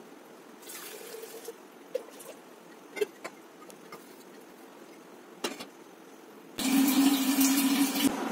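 A few small clicks over faint room sound, then about six and a half seconds in, water from a kitchen tap starts pouring loudly into a steel water pot standing in a steel sink, filling it with a steady low tone from the vessel.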